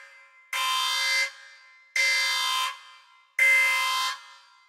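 Electronic alarm sounding in a repeating pattern: about three blasts of roughly three-quarters of a second each, one every second and a half or so, each with a short fading tail. It is the 'Spaceship Alarm' library sound effect, standing in for the yacht's anchor alarm going off as the anchor drags.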